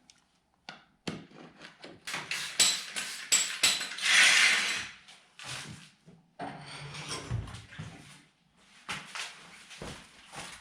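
Hand work on parts: scattered clicks and knocks with scraping and rubbing between them, and a louder hiss about four seconds in.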